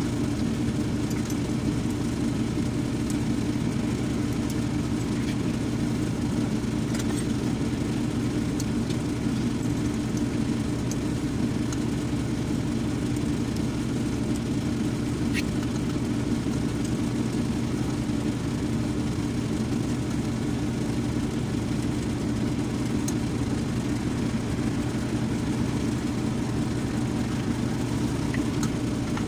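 An engine idling steadily, a constant low drone, with a few faint clicks scattered through it.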